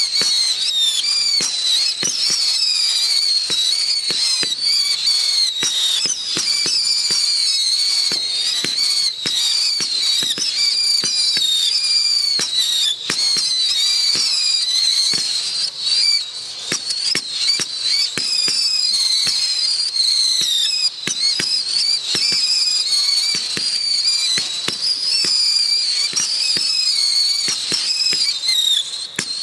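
Piromax PX0216 'Scream' 84-shot 8.5 mm roman candle firing continuously. Overlapping high-pitched, wavering whistles from the screaming stars run throughout, over a rapid string of sharp pops, several a second, as the shots leave the tubes.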